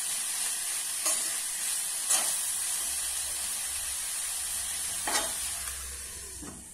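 Sliced vegetables sizzling in oil in a Healux stainless steel pot as they are stirred with a spoon, with a few sharp knocks of the spoon against the pot. The sizzle quietens near the end as the lid goes on.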